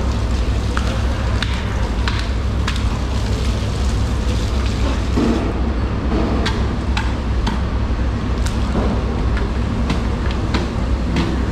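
A steady low rumble with scattered sharp clicks and light knocks.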